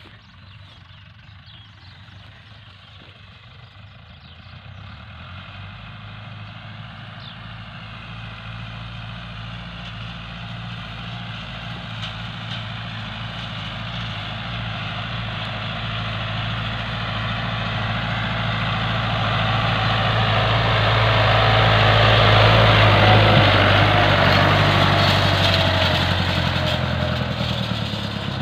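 Farm tractor engine running steadily while it pulls a finger-wheel hay rake raking cut alfalfa into windrows, with the rake's rustling hiss over the engine hum. It grows steadily louder as it approaches, peaks about three-quarters of the way through, then eases a little.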